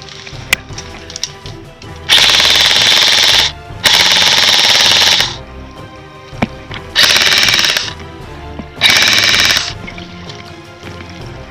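Airsoft automatic gun firing four full-auto bursts close by: two of about a second and a half, then two shorter ones.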